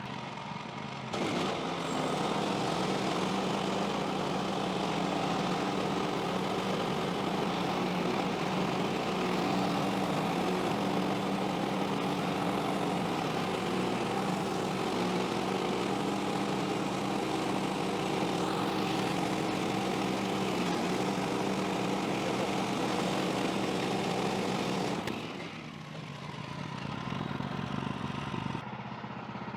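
The engine of a Woodland Mills HM130MAX portable bandsaw mill runs while the band saw cuts a pine log. It gets louder about a second in, holds steady, and drops back to a lower level about 25 seconds in.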